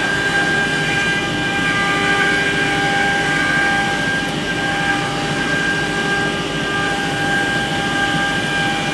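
CNC router spindle whining steadily at high speed while it cuts groove lines into a laminated cabinet-door panel, over a steady rushing noise. A few of the higher tones drop in and out as the cut goes on.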